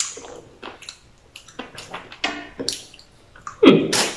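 Wet, squishy mouth sounds of someone chewing and smacking a mouthful of soft fruit flesh, in short scattered bursts, with one louder noise near the end.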